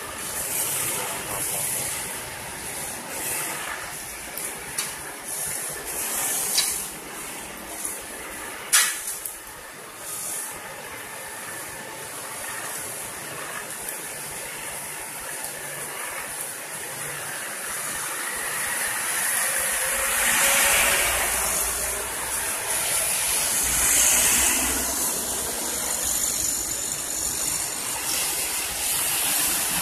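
Road-paving machinery at work: an asphalt paver and road roller running under a steady hiss, with two sharp clanks about a third of the way in. A truck passes close in the last third, making it louder, with more rumble.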